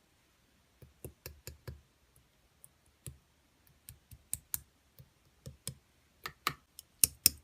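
Irregular clicking of a computer keyboard being pressed, the clicks coming quicker and louder towards the end.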